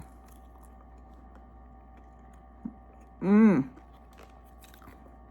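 Quiet room with a faint steady hum and a few small clicks; about three seconds in, one short hummed vocal sound that rises and then falls in pitch.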